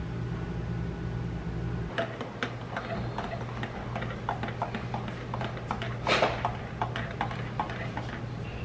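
A spoon stirring coffee in a ceramic mug, clinking against the sides in a quick, irregular run of light ticks from about two seconds in, with one louder clink about six seconds in. A steady low hum runs underneath.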